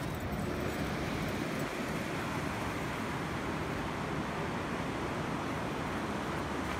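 Steady wash of ocean surf on a sand beach, mixed with wind buffeting the microphone.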